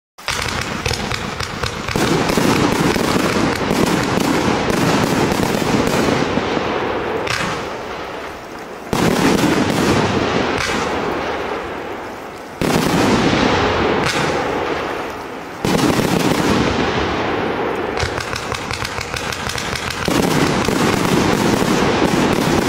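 Multi-shot fireworks cake firing without a break: a dense stream of launches and bursting shells. Fresh volleys start abruptly several times and each dies down somewhat before the next.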